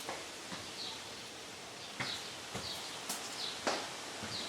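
Birds chirping outdoors: short falling chirps repeating every half second to a second, over steady outdoor background noise, with a few sharp clicks.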